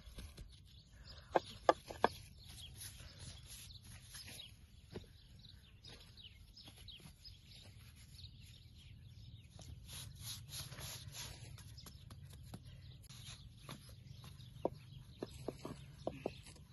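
A few short sharp knocks, three close together about a second and a half in and a scatter more near the end, over a steady low outdoor background: flatbread dough being handled, stacked on a tray and rolled out with a wooden rolling pin on a round wooden board.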